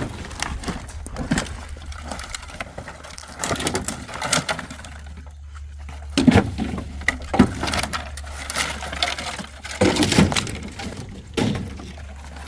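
Firewood being handled and loaded: irregular knocks and cracks of wood, about eight of them spread unevenly, the loudest cluster around ten seconds in.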